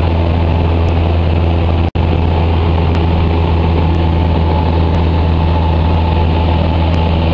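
Cessna 172's piston engine and propeller droning steadily in flight, heard inside the cabin as a loud, constant low hum. The sound cuts out for an instant about two seconds in.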